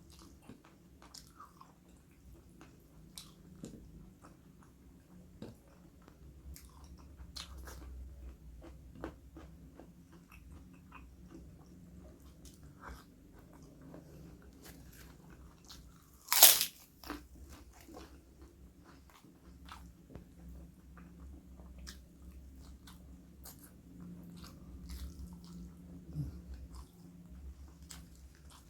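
A person chewing and biting crunchy food close to the microphone, with scattered crisp crunches and one sharp, much louder crack about halfway through.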